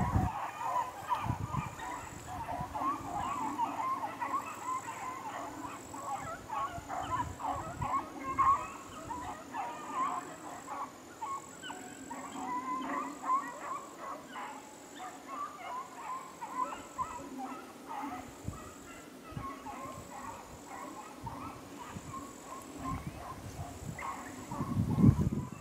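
A pack of beagles baying and bawling in a steady, overlapping chorus while running a rabbit on the track: constant pressure with no checks. There is a low rumble near the start and a louder one near the end.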